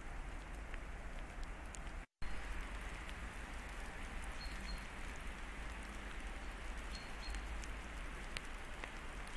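Steady hiss of wet snow and rain falling, with wind rumbling on the phone's microphone. A faint, short, high bird call comes through a few times, and the audio drops out briefly about two seconds in.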